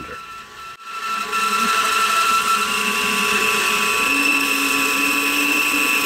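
Bandsaw with a 1/4-inch blade running and cutting a small block of poplar. The steady machine noise with a constant whine starts about a second in, and a lower tone joins about four seconds in. The blade is installed upside down, so it cuts slowly and burns the wood.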